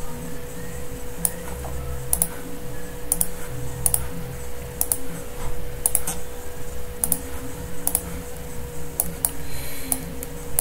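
Computer mouse clicking at irregular intervals, about once a second, as console windows are closed one by one, over a steady faint electrical hum.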